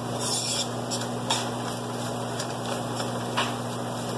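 Curry spice base frying in canola oil in a pan, sizzling steadily with short crackles about once a second, over a steady low hum.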